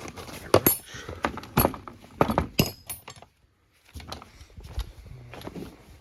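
Metal hand tools clinking and clattering as they are handled: several sharp metallic clinks with a short ring in the first three seconds, then a brief dead silence and softer knocks.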